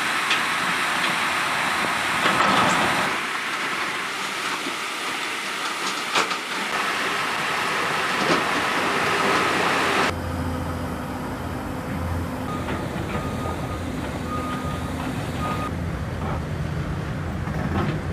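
Heavy machinery running beside a flooded river, under a steady rushing noise. About ten seconds in the sound cuts to a lower engine rumble, with a few short reversing beeps repeating near the middle of that stretch.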